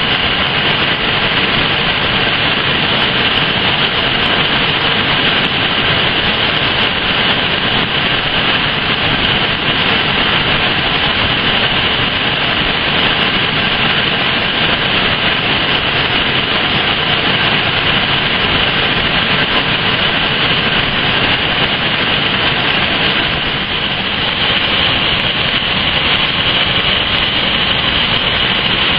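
Steady, loud industrial roar of foundry plant while molten metal pours in a continuous stream, with a hissing edge at the top, easing slightly for a moment a little past the middle.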